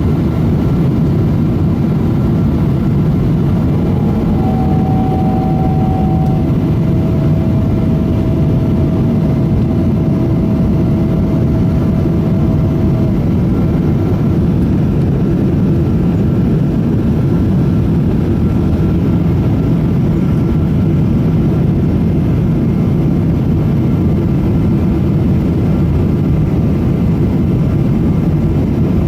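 Steady cabin noise of a Boeing 777-200 on approach: jet engine and airflow rumble heard from inside the cabin, with a faint steady tone for several seconds near the start.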